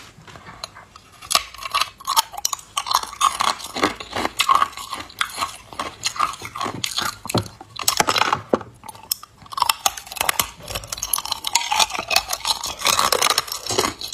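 Hard ice cubes bitten off a plastic ice-cube tray and crunched between the teeth: a dense run of crisp cracks and crunches with small clinks of ice.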